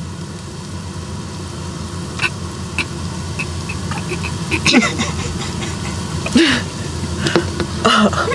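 A large pot of salted pasta water heating on the stove as it comes toward the boil: a steady low rumble with scattered light knocks and ticks.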